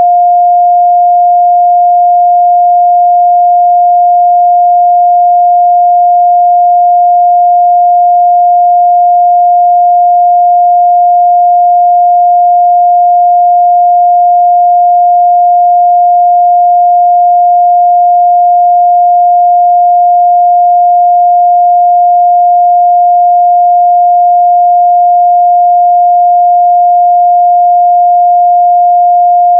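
A steady, loud 706 Hz sine-wave test tone, one pure unchanging pitch held throughout, used to check speaker and headphone response.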